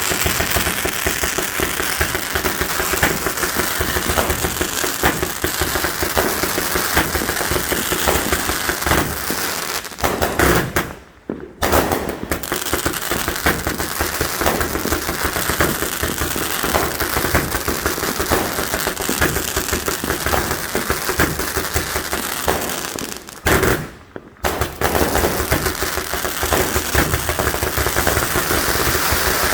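Consumer fireworks finale barrage: a dense, continuous stream of rapid bangs and crackle. It breaks off briefly twice, about 11 seconds and 24 seconds in.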